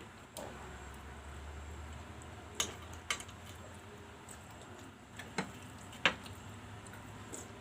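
Eating a meal of green mussels and shrimp: about six sharp, separate clicks and taps as shells and dishes knock together, the loudest about six seconds in.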